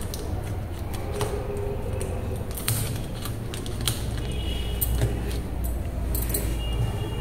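Hands handling and taping cardboard cutout pieces on a tabletop with clear sticky tape: scattered light clicks and rustles, with two short high squeaks, one about halfway through and one near the end.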